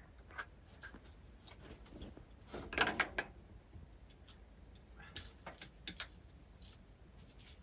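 Small metal parts and tools clinking and clicking as they are handled, in a few short clusters, the loudest about three seconds in.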